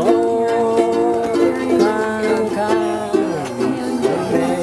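Two ukuleles strummed together, playing a tune with a steady strumming rhythm.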